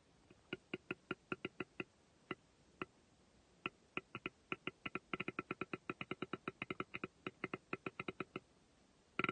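A string of short, clipped whitetail buck grunts, a tending-grunt call: a few spaced grunts, then a fast run of about six a second that stops about a second before the end. A single louder sharp click follows right at the end.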